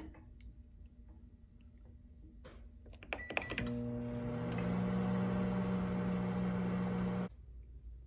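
Microwave oven keypad pressed, with a short beep about three seconds in. The oven then starts and runs with a steady hum for several seconds before cutting off suddenly.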